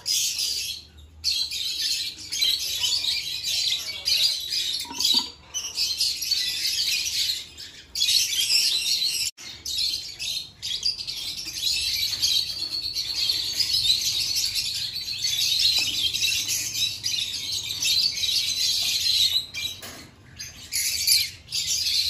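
Many caged small parrots chirping and chattering together in a continuous dense twitter, breaking off abruptly a few times.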